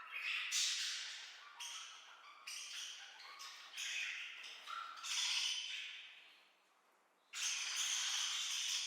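Budgerigars chattering and squawking in quick, irregular bursts. The sound dies away about two-thirds of the way through, then starts again suddenly.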